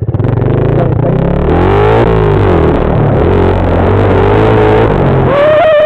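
Engine of a small off-road vehicle running while it is ridden along a trail, its pitch rising and falling with the throttle. Near the end a brief strong, wavering high tone sounds over it.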